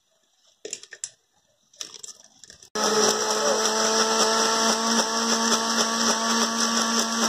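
A few short knocks and rattles, then about three seconds in an electric kitchen blender switches on suddenly and runs steadily with a strong hum, puréeing cut fruit.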